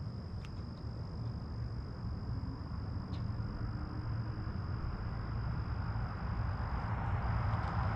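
Steady low rumble of road traffic with a thin, steady high tone over it. Near the end a car approaches, its noise growing louder.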